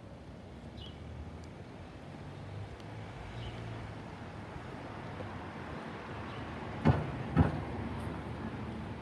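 Street traffic noise: a vehicle's engine running steadily, with two sharp thumps about half a second apart around seven seconds in.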